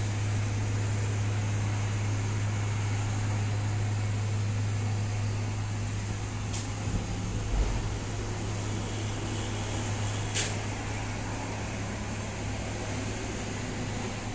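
A steady low hum under a constant hiss, with two sharp clicks about halfway through and a short low thump between them.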